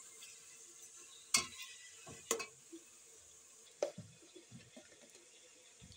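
Metal slotted spoon stirring beef pieces in an aluminium pot, clinking sharply against the pot three times, about a second and a half in, just past two seconds and near four seconds, with a few lighter knocks. A faint steady sizzle of the meat frying in oil runs underneath.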